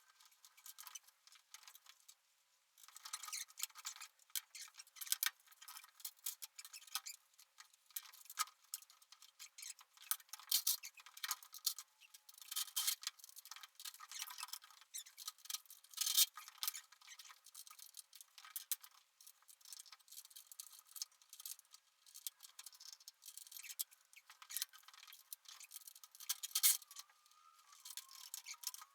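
Hand tools working on metal: irregular runs of sharp metallic clicks and clinks, like ratchet and wrench work on fasteners, during engine removal.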